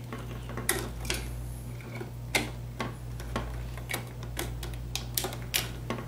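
Irregular light clicks and ticks of a wire and a plastic light switch being handled as the red wire is hooked onto a screw terminal, over a steady low hum.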